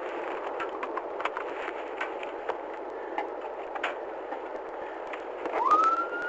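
A steady noise with scattered clicks and crackles, then about five and a half seconds in a police car siren winds up, rising quickly in pitch and holding a high tone.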